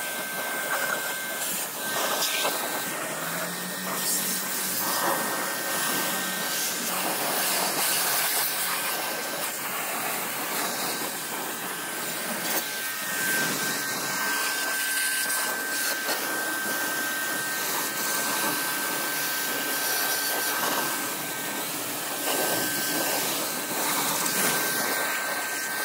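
STARQ ST-25 electric pressure washer spraying a high-pressure water jet onto a motorcycle, rinsing off shampoo foam: a steady hiss of spray, with a thin high whine that fades in and out.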